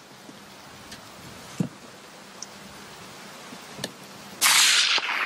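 A suppressed hunting rifle shot about four seconds in: one sudden sharp report that fades over most of a second. A few faint clicks come before it.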